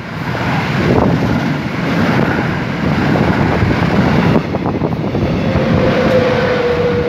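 Rolling-highway freight train with lorries on low-floor wagons passing close at speed: a loud, continuous rumble and clatter of wheels on rail. Near the end its couchette car and the red electric locomotive at the rear go by, and a steady whine comes in about five and a half seconds in.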